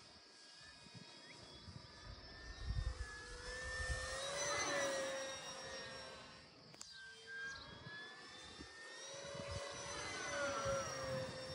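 Electric motor and propeller of an E-flite P-47 Razorback RC warbird whining in flight as it makes two passes. The pitch rises as it approaches and drops as it goes by, about four seconds in and again near the end. Wind rumbles on the microphone in the first few seconds.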